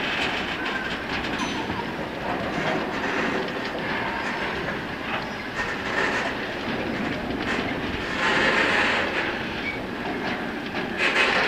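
Freight train of rail tank cars rolling past close by: a steady rumble of wagons with wheels clicking over the rail joints, swelling louder about eight seconds in and again near the end.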